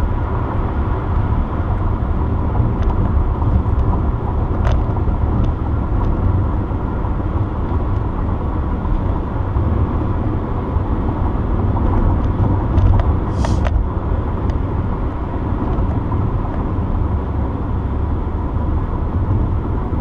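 Steady car road and engine noise heard inside the cabin while driving, with a brief sharp higher sound about thirteen seconds in.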